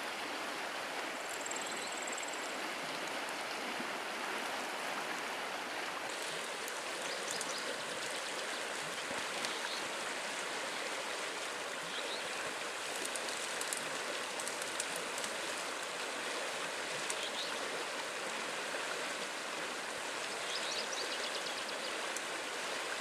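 Steady rush of flowing river water, with a few faint high chirps now and then.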